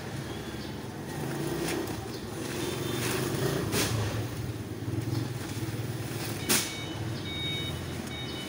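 Heavy rice sacks being handled and stacked in a truck's cargo bed, with sharp knocks and one louder thud about six and a half seconds in, over a steady low engine hum. Short high beeps repeat near the end.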